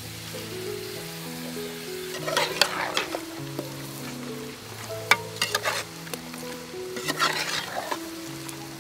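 A metal ladle stirring and scraping chunks of shark meat and spice paste around a metal cooking pot, in three short bouts of clatter about two, five and seven seconds in.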